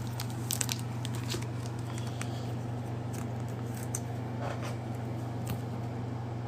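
Sparse, light crinkles and clicks of trading-card packs and cards being handled, over a steady low hum.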